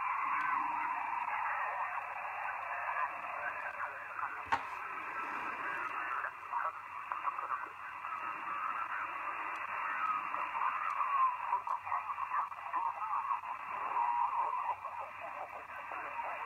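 Shortwave radio receiver in lower sideband on the 80-metre amateur band, playing hiss and single-sideband signals through a narrow 2.4 kHz filter, their pitch shifting as the dial is tuned slowly down. A sharp click about four and a half seconds in.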